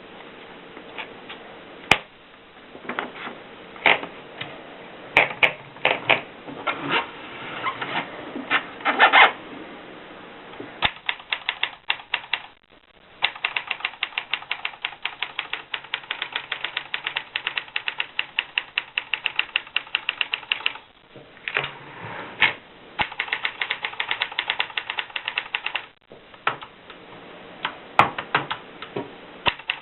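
Olympia Splendid manual portable typewriter being typed on: scattered key strikes for the first ten seconds, then long runs of rapid, even clicks, about ten a second, broken by a few short pauses.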